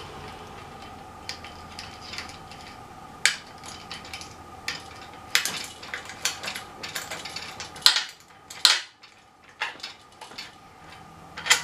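Bolts and nuts being fitted and tightened with a hand tool to fasten element clamps onto an aluminium antenna boom plate: irregular metallic clicks, clinks and scrapes, with a few sharper knocks about 3, 5 and 8 seconds in and near the end.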